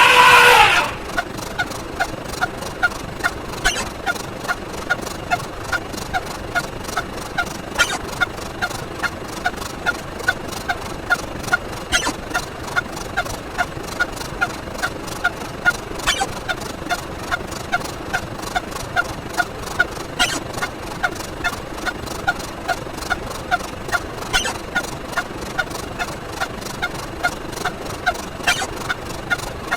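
Edited-in counting sound effects: one loud effect with a rising pitch in the first second, then the same short blip repeating evenly about three times a second, with a sharper click about every four seconds.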